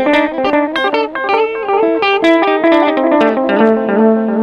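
Electric guitar playing a run of single notes through a Pedaltank Time Capsule 2 analog delay pedal. Several notes a second step up and down, and each one trails repeats. The wet knob is at about three o'clock, so the echo is louder than the original note.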